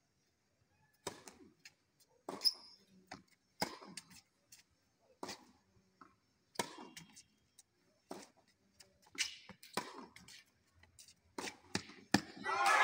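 Tennis balls struck by rackets in a rally, a sharp pop about every second and a half, with softer bounce taps between. Near the end, clapping and voices break out.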